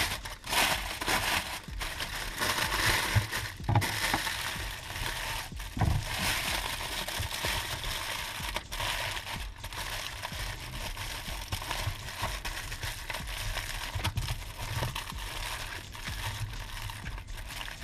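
Aluminium foil being crinkled, folded and pressed shut by hand into a parcel: a continuous crackling rustle with a few brief pauses.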